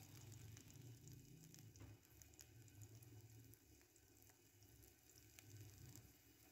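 Garlic-ginger paste frying in oil in a pan: a faint sizzle with scattered small crackles, dropping a little after about three seconds.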